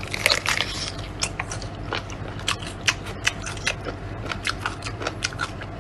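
Close-miked mukbang eating: a person biting into and chewing a large stuffed wrap, with a string of irregular sharp crackling clicks, a few a second.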